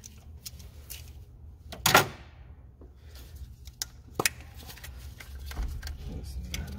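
Plastic clicks and knocks as engine hoses and connectors are worked loose by hand, with one louder clatter about two seconds in, over a low steady hum.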